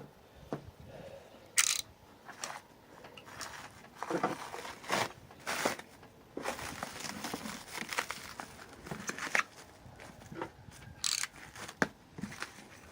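Packaging being handled and opened by hand: irregular rustles, crinkles, clicks and light knocks.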